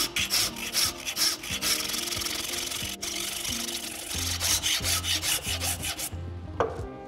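Wood rasp scraping in quick, repeated strokes across the end of a walnut block, shaping it into a wedge; the strokes stop about six seconds in. Background music with a bass line plays underneath.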